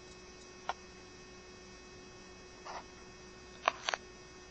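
Steady electrical hum, with a few short clicks and a rustle over it, two of the clicks coming close together near the end.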